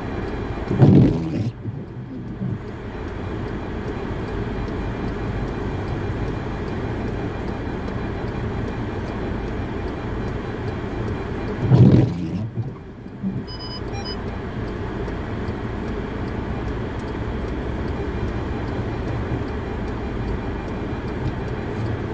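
Car engine idling steadily, heard from inside the cabin, with the windshield wiper sweeping across the glass twice, about eleven seconds apart: once about a second in and once near the middle.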